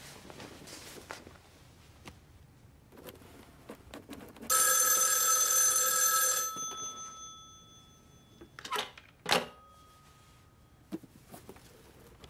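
An old desk telephone's bell rings once, for about two seconds, and the ring dies away slowly. Two brief, sharp sounds follow a few seconds later.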